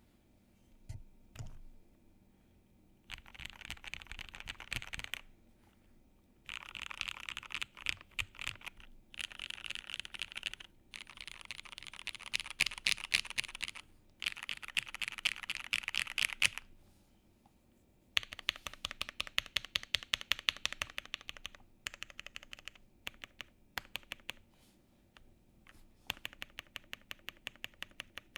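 Custom mechanical keyboard with lubed vintage black linear switches on a polycarbonate plate, foam-dampened, being typed on in quick bursts of keystrokes with short pauses between. In the second half come runs of evenly paced single key strokes, several a second.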